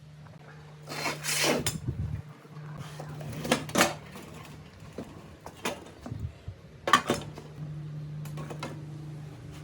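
Metal parts clinking, knocking and scraping as they are handled on a workbench, over a steady low hum. There is a longer scrape about a second in and sharp knocks near the middle and about seven seconds in.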